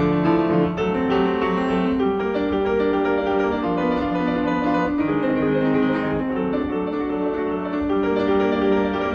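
Background piano music: a steady run of notes, sounding like a piano or electric piano piece.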